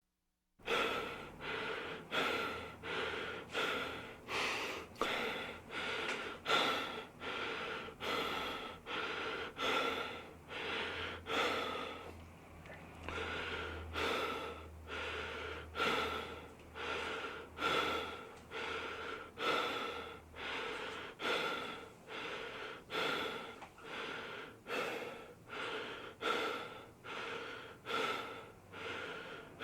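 A person breathing heavily in quick, even, rhythmic breaths, about three every two seconds, with a brief softer lull about twelve seconds in.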